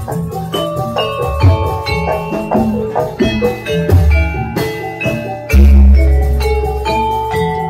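Javanese gamelan music for a jathilan dance: metal-keyed percussion chiming a quick interlocking melody over low drum strokes. About five and a half seconds in comes a loud, deep stroke that rings for over a second.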